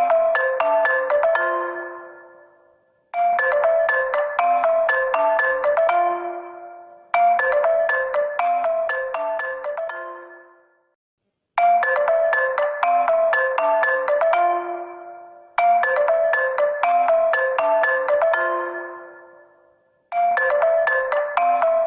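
HONOR smartphone ringtone looping: a short melody of quick pitched notes that dies away and starts over about every four seconds, with a brief pause before each restart.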